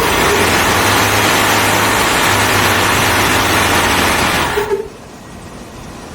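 Remote-control electric lawn mower running, a loud steady whir with a low hum underneath. It cuts off abruptly about five seconds in, leaving a quieter steady background.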